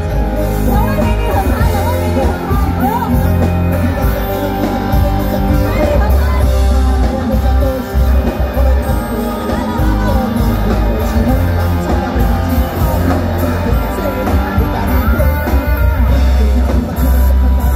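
Live rock band playing a song, with singing over electric guitar, bass guitar and drum kit, loud and continuous with a heavy bass line.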